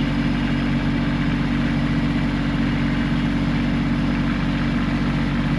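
A vehicle engine idling steadily at an even, unchanging speed.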